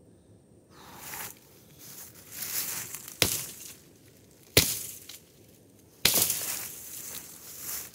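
Axe chopping into a tree trunk near its base: three sharp strikes about a second and a half apart, with a rustling hiss between them.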